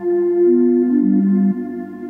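Ambient electronic music played live on synthesizers: soft, held notes that overlap in a slow phrase over a steady low drone.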